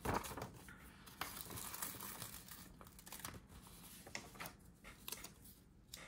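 Paper sticker sheet rustling as it is handled, loudest right at the start, then a planner sticker peeled off its backing and pressed onto the page, with small crinkles and ticks throughout.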